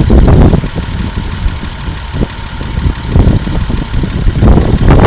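Tractor running with a trailed potato harvester working behind it: a loud, uneven low rumble, with a steady whine through the middle that stops about four seconds in.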